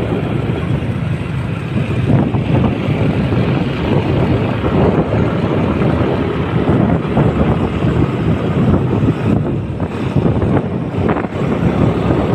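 A vehicle running steadily, with heavy wind buffeting the microphone.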